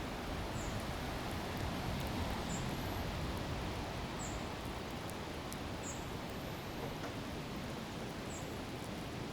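Steady rushing of a fast mountain river, an even roar with no breaks. A faint high chirp repeats about every one and a half to two seconds above it.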